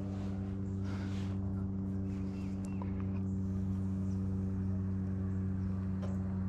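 Pickup truck engine idling, a steady low hum, with a few faint footsteps crunching in dry grass.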